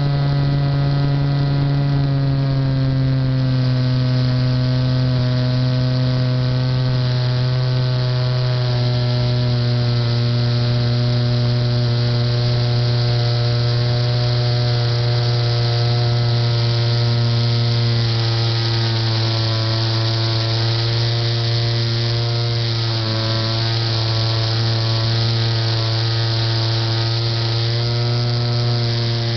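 Motor and propeller of a Titan J3 radio-controlled model plane, heard close up from its onboard camera in flight: a steady, loud droning hum with a wind hiss. The pitch drops a little about two to three seconds in and wavers briefly later on, as the throttle is eased.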